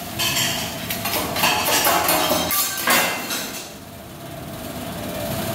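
Metal spatulas tapping and clanking on a steel teppanyaki griddle, a quick run of clacks for about three and a half seconds that then dies down.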